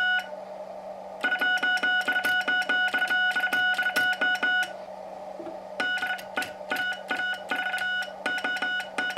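Morse code sent on a Vibroplex semi-automatic bug key, heard as a keyed sidetone of about 700 Hz with the key's contacts clicking. There is one long fast run of dits, then shorter groups of characters. The dit spring is pre-tensioned so the dits come out clean rather than fuzzy. A steady low hum runs underneath.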